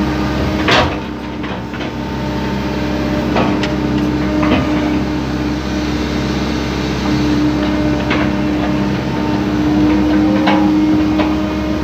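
Excavator's diesel engine running steadily as the hydraulic arm works, heard from inside the cab. A loud knock comes about a second in, and several sharper clanks follow every few seconds.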